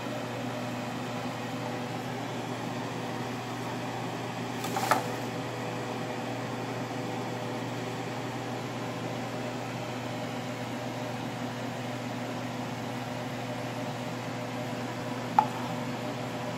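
Steady mechanical hum of a running kitchen appliance or fan: a low drone with a faint steady higher tone. Two brief knocks stand out, one about five seconds in and one near the end.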